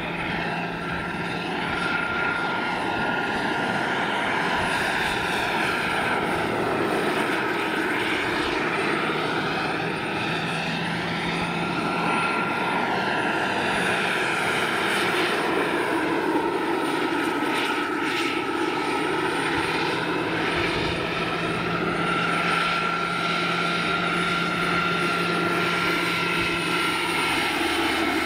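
Large-scale RC Aérospatiale Gazelle model helicopter in flight, powered by a Jakadofsky Pro 6000 model gas turbine: a continuous turbine whine over the rotor noise. The whine's pitch rises and falls slightly several times as the helicopter flies back and forth.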